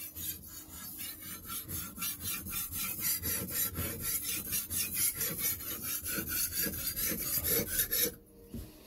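Kitchen knife blade stroked back and forth on a wet sharpening stone, a rhythmic grinding scrape at about three strokes a second that stops abruptly near the end. The audible grinding is the sign that the stone is cutting and not glazed.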